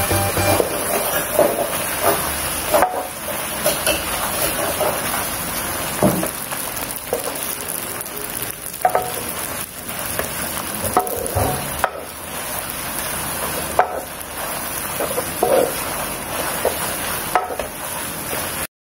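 Spaghetti frying in a non-stick wok, tossed and stirred with a spatula: a steady sizzle with scattered scrapes and knocks of the spatula against the pan. The sound cuts off suddenly near the end.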